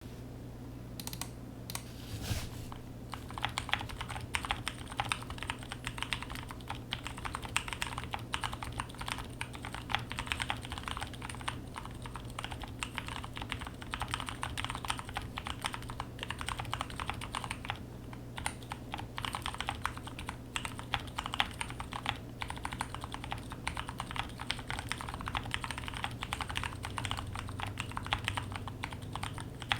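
Typing on a mechanical keyboard with lubed, film-fitted Cherry MX Clear tactile switches, a POM plate and DSA keycaps in a 3D-printed gasket-mount case. A few single keystrokes come first, then steady continuous typing from about three seconds in.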